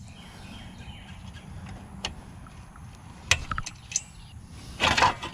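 Parts of a small engine being handled during disassembly: a few light clicks and knocks, then a brief louder rattle near the end, over a steady low background rumble.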